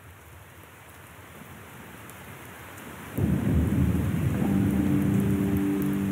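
Rain and thunder ambience opening a progressive metal track: steady rain fading in and growing louder, then a loud low thunder rumble breaks about three seconds in. About a second later, held low notes of music start under it.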